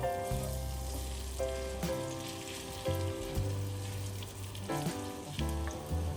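Food sizzling as it fries in oil in a pan, a steady hiss, with soft background music playing over it.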